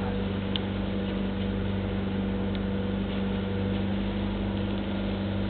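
Engine of a motorized outrigger boat (bangka) running at a steady cruising drone, with a constant hiss over it and a small click about half a second in.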